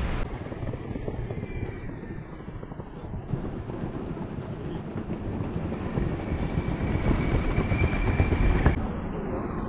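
Low rolling rumble and wind noise from riding an electric skateboard over paving, with a faint high whine about six seconds in.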